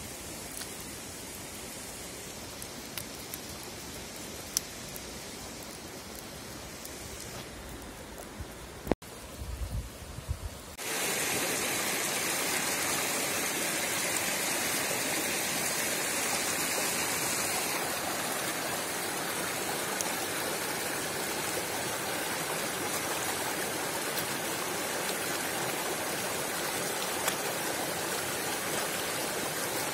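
Broth bubbling in a stone dizi pot over a wood fire, with small scattered crackles. After a few knocks about nine seconds in, a shallow stream runs steadily over rocks from about 11 seconds, louder, as a bunch of fresh herbs is rinsed in the current.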